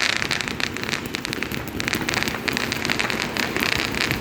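Ground-spinner firework spewing sparks: a steady hiss with dense, rapid crackling.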